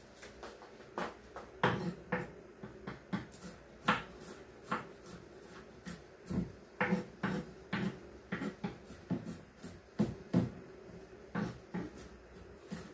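Kitchen knife cutting on a wooden chopping board, making irregular knocks, one or two a second.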